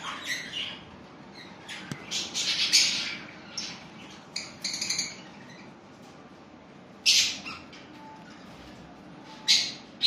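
Caged budgerigars chirping and squawking: short clusters of sharp, high calls, several in the first half, then one about seven seconds in and another near the end.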